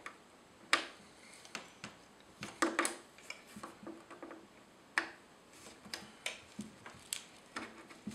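Sharp clicks and light knocks of a metal XLR microphone cable connector being handled and plugged into the mic input on the back of an audio interface.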